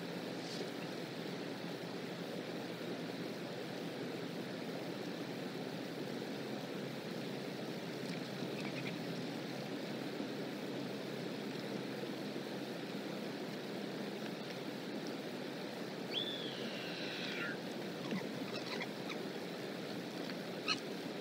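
Steady outdoor rushing background noise on a nest camera's microphone, with a single descending whistled call about sixteen seconds in and a few faint clicks near the end.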